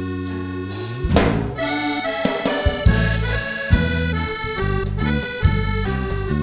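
Band playing a song's instrumental introduction with accordion, bass and drum kit: held accordion chords, a loud hit about a second in, then a steady bass-and-drum groove under the accordion melody.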